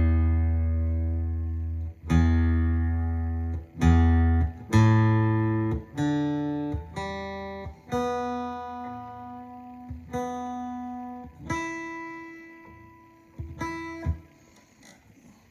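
Guitar played alone: slow plucked notes and chords, each struck and left to ring out before the next, about a dozen in all, dying away near the end.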